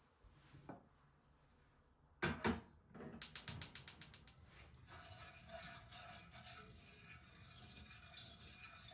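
A clatter, then a quick run of even, ratchet-like clicks, about seven a second, that fade out over a second and a half, followed by light kitchen handling noises.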